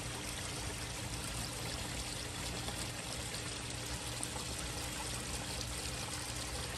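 Garden pond waterfall: water pouring steadily into the pond.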